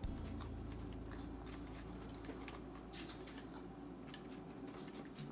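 Faint, scattered clicks and taps of a toddler's fingers picking at fries on a plastic plate and tray, over a low steady hum.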